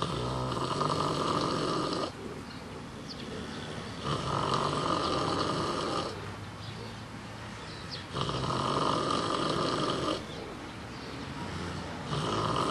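Domestic pig snoring in a regular rhythm: snores about two seconds long, one every four seconds, with quieter breathing in between.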